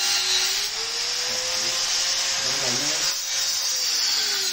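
A small motor running steadily, its whine drifting slowly up and down in pitch over a constant hiss.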